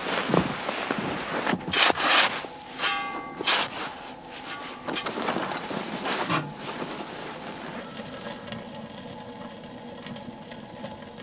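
Boots crunching through snow, followed by a series of rustles and knocks that die down to a quieter hiss.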